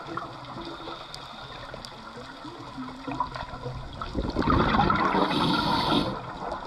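Underwater ambience: a low steady wash, then from about four seconds in a burst of bubbling for about two seconds, a scuba diver exhaling through a regulator.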